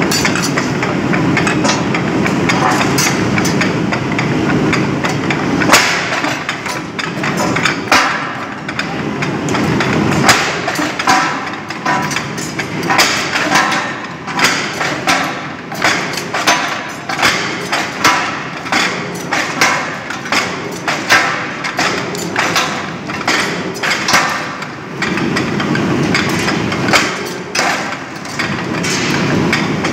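Two-high hot rolling mill with 17 × 36 inch rolls and a gearbox drive, running as a red-hot metal slab is worked through its rolls. There is a steady low mechanical rumble, and through the middle stretch a run of sharp metallic clanks, roughly one a second.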